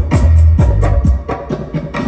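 Music played loud through sound-system speaker boxes: a heavy bass line that drops out about a second in, leaving the drum beat alone.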